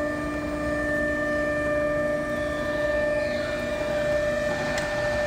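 Industrial machine running with a steady whine over a low rumble, with a short hiss about three seconds in.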